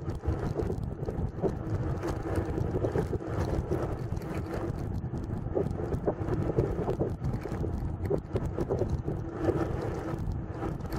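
Wind buffeting the microphone over the steady rumble of a bicycle's tyres rolling over interlocking paving stones, with small rattles and knocks from the bike.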